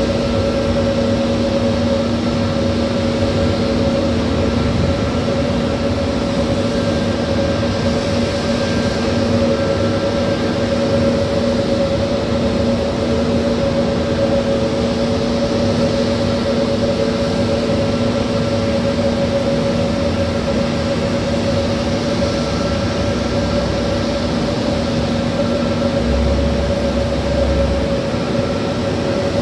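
Airbus A320neo-family airliner's jet engines running at taxi idle: a steady rushing whine with two constant hum tones.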